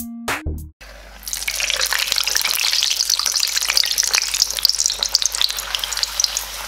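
A thin semolina kachori disc deep-frying in hot oil in a wok while it is pressed down with a mesh strainer, sizzling and crackling steadily. The sizzle starts about a second in, just after a brief burst of background music.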